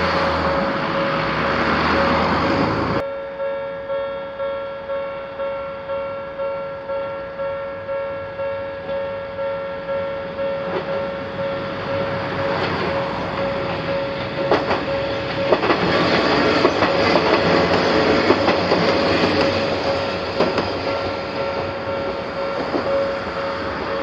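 A car drives past at first. Then, about three seconds in, a Japanese level-crossing warning bell starts, dinging steadily about one and a half times a second. From about halfway a red-and-cream diesel railcar rumbles over the crossing, its wheels clacking over the rail joints.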